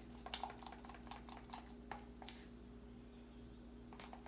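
Faint, scattered taps and clicks of kitchen utensils and dishes being handled on a counter, over a steady low electrical hum.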